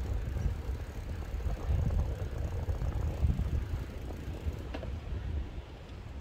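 Wind buffeting the microphone of a camera on a moving bicycle: a low rumble that rises and falls, with one faint click near the end.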